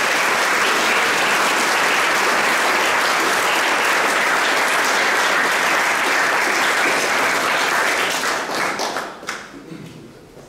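Audience applauding steadily, then thinning to a few last claps and dying away about eight seconds in.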